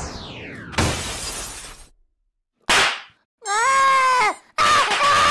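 Stop-motion soundtrack effects: a falling whistle that ends in a loud burst of noise about a second in, a short swish a little later, then high, wavering pitched cries in the last two seconds.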